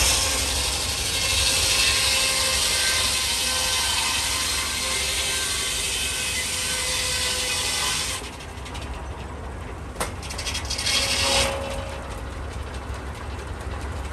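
Steam-powered sawmill's large circular saw blade ripping through a timber on the log carriage, with the carriage mechanism rattling. The cut stops about eight seconds in; a sharp knock follows near ten seconds and a short second burst of sawing around eleven seconds, then the machinery runs on more quietly.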